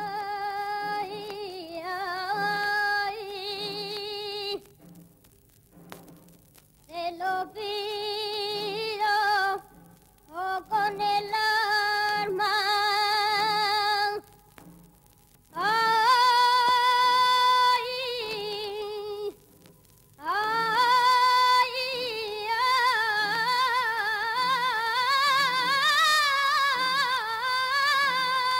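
Background music: a high, wordless voice sings a slow melody of long held notes with vibrato, in several phrases broken by short pauses, over a soft regular low beat.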